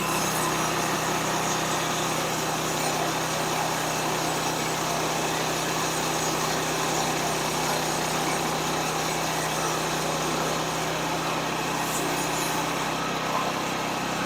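Small gasoline engine running steadily at a constant speed, with no change in load.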